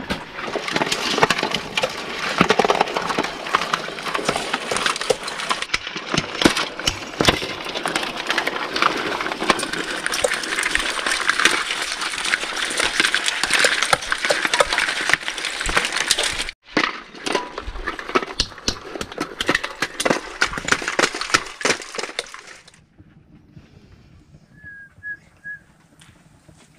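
A hammer cracking hermit crab shells on a concrete slab: a dense run of sharp cracks and crunches. It stops about three-quarters of the way through and gives way to a low background with a few faint chirps.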